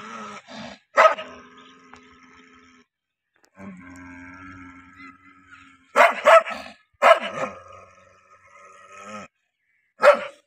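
A dog barking and growling with its teeth bared in a threat display: five or so sharp barks, two in quick succession about six seconds in, with a drawn-out growl held between them.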